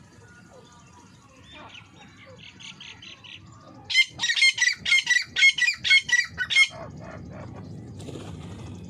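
Francolin (teetar) calling. A softer run of short notes comes first, then a loud, rapid series of about ten shrill notes, roughly four a second, that stops abruptly.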